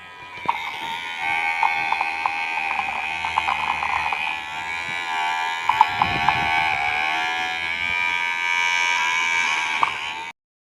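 Small electric motor of a homemade mini mixer grinder spinning its blade at high speed with a steady high whine, while potato pieces tick and rattle against the plastic bottle. It starts about half a second in and cuts off suddenly just before the end.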